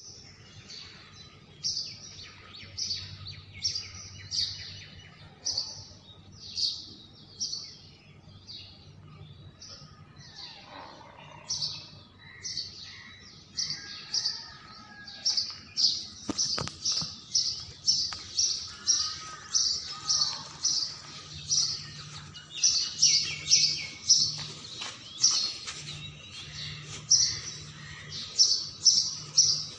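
Birds chirping: a long string of short, high chirps, about one a second at first and coming faster, two or three a second, in the second half, over a faint low hum.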